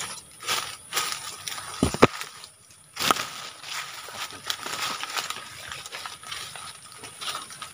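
Dry leaves and twigs crackling and rustling in irregular short clicks, with a louder sharp knock about two seconds in and another about three seconds in.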